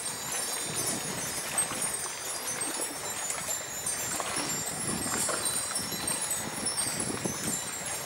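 Small hanging metal bells or wind chimes tinkling in the breeze: many brief, high-pitched rings scattered irregularly.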